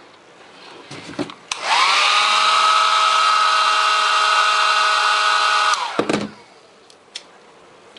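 Small handheld hair dryer switched on: its motor spins up to a steady whine with rushing air, runs for about four seconds, then is switched off and winds down. A few handling knocks as it is picked up and set down.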